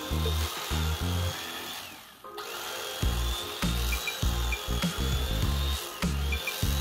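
Electric carving knife running as it slices through cooked brisket, a steady motor buzz and whine with a short break about two seconds in.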